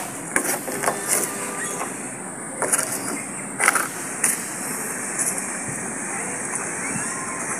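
Steady outdoor background noise with a high hiss, broken by a few short knocks and clicks in the first half.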